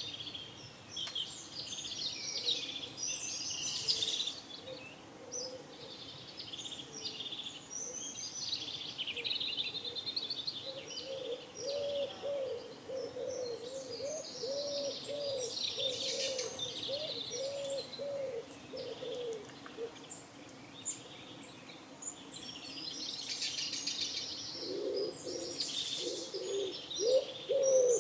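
Small songbirds chirping and twittering continuously, with a pigeon cooing in a run of low, evenly repeated notes about a third of the way in and again near the end.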